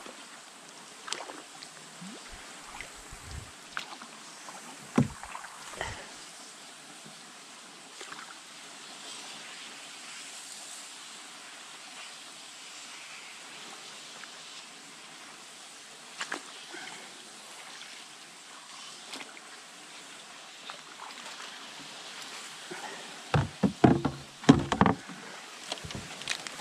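Canoe paddling slowly through a leaf-covered stream: quiet paddle strokes in the water with a few sharp knocks of the paddle against the hull. Near the end comes a quick run of louder knocks and bumps as the canoe meets a fallen log across the channel.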